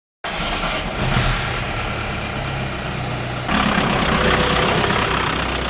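Vehicle engine running steadily under a broad rush of driving noise, which gets louder about three and a half seconds in.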